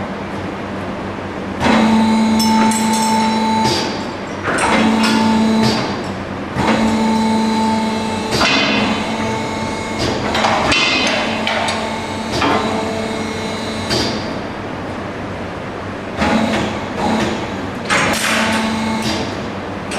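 Metal clanking and rattling of a meat-loading crane's hooks and rail as carcass quarters are hung, with a motor humming in several short runs of a second or two between the clanks.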